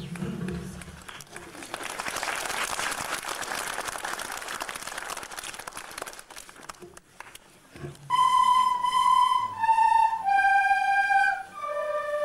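Crowd applauding for several seconds, then, from about eight seconds in, a group of children's recorders playing a simple melody in unison, one held note after another.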